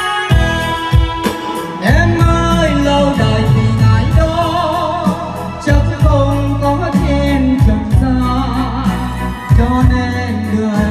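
A song with instrumental accompaniment and a man singing into a microphone, heard through a stage PA sound system.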